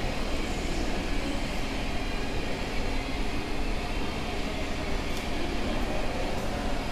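Steady low rumbling background noise, like a shop fan or heater running, with a few faint light clicks in the second half as small metal parts are fitted into the open housing of a Snap-on MG725 air impact wrench.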